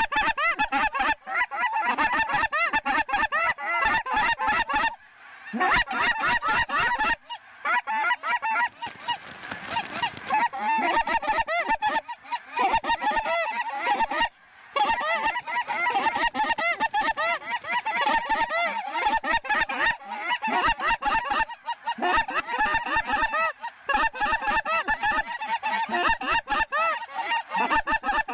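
A huge flock of lesser Canada geese honking all at once, hundreds of short overlapping calls in a continuous din with only brief lulls.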